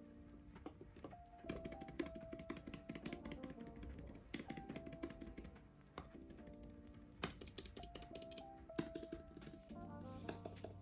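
Typing on an Apple Magic Keyboard for iPad: fast runs of light scissor-switch key clicks in three bursts with short pauses between them, over background music.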